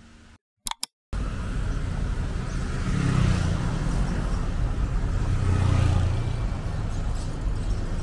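Steady road traffic noise, starting after a second-long gap and swelling louder twice as vehicles go by.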